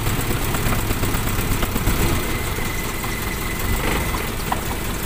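Toyota Kijang Super's carbureted four-cylinder engine idling steadily. The owner's complaint is that it stumbles ('brebet'), as if about to die, when the throttle is opened.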